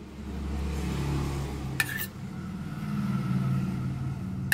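A low motor drone, like a vehicle engine running nearby, wavering up and down in pitch. Over it, a spoon clinks sharply against a steel serving bowl twice: once about two seconds in and again at the end.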